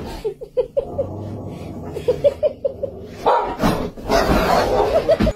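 Dogs barking and yipping at close quarters: a run of short, quick yips, then louder, rougher barking in the last two seconds.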